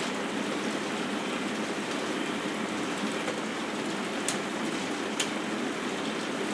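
K'nex robot arm's gear trains and transmissions running steadily under motor drive during a programmed test run. There are two sharp clicks about a second apart past the middle.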